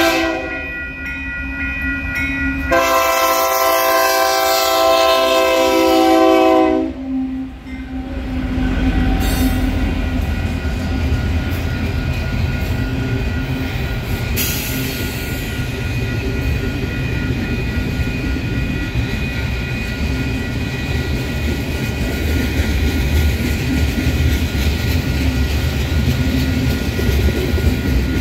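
Union Pacific freight locomotive horn: a short toot at the start, then one long chord-like blast of about four seconds beginning about three seconds in. From about eight seconds the freight train rolls past with a steady heavy rumble and wheel clatter, with a sharp clank a few seconds later.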